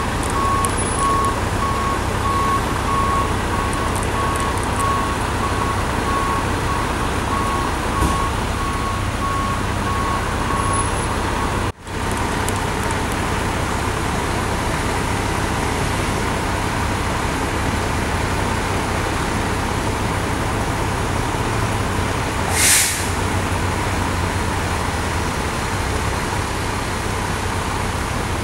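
Heavy diesel truck engines idling steadily, with a steady high tone over them for the first ten seconds or so. A short hiss of air, like an air brake release, comes about four fifths of the way through.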